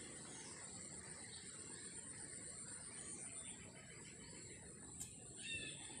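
Faint countryside ambience: insects drone steadily at a high pitch, with a single faint click about five seconds in and a short bird call just after it.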